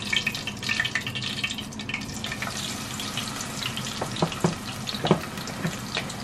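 Chicken feet deep-frying in a pot of hot oil: a steady hissing sizzle full of small crackles, busiest just after the batch goes in, with a few louder spitting pops about four to five seconds in.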